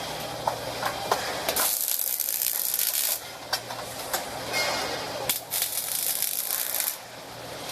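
Robotic arc welder's arc crackling and hissing in several separate bursts of about a second each, with short ticks between them: a run of short welds.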